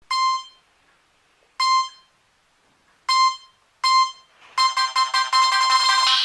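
Nokia 3220 ringtone played on a Nokia N73 mobile phone. Four identical short electronic beeps come first, the first three about a second and a half apart and the fourth sooner. About four and a half seconds in, a fast synthesized melody of many quick notes begins.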